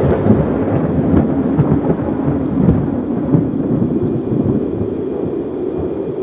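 Rolling thunder over steady rain, a deep rumble that slowly eases off.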